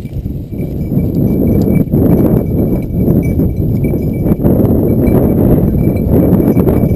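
Strong wind buffeting the GoPro HD Hero2's microphone, a loud low rumble that swells and eases, with footsteps rustling and crunching through dry brush.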